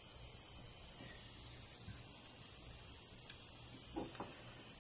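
Steady high-pitched hiss in the background, with a few faint taps and clicks from a small circuit board being handled, about two seconds in and again about four seconds in.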